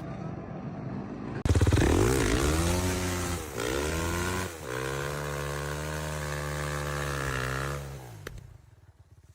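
An engine comes in suddenly about a second and a half in, revs up and down, holds a steady pitch for a few seconds, then winds down and fades near the end.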